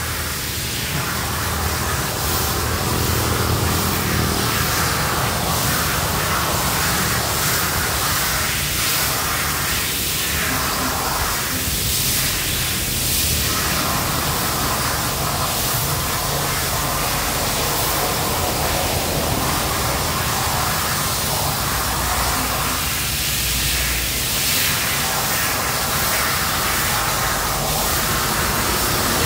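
Gantry cutting torch cutting steel plate: a steady, loud hiss with a low rumble underneath.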